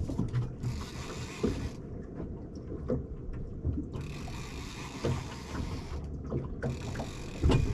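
Knocks, clicks and handling noise in a small fishing boat at anchor, over a steady low rumble, with several stretches of hiss a second or more long.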